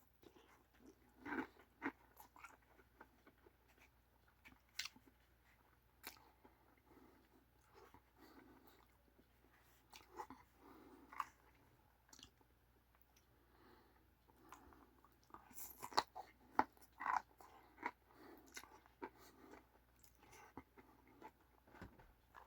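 Faint chewing of a mouthful of ramen noodles mixed with crunchy chili-crisp sauce, with scattered small crunches and mouth clicks coming in short spells, busiest a little past the middle.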